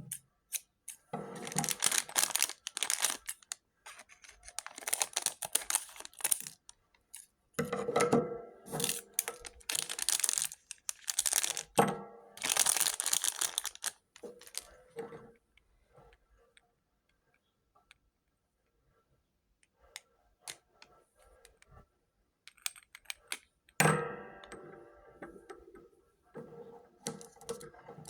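Blind bag packaging being torn open and crinkled by hand, in several stretches of rustling with quiet gaps between. A sharp rip about 24 seconds in starts another stretch of crinkling.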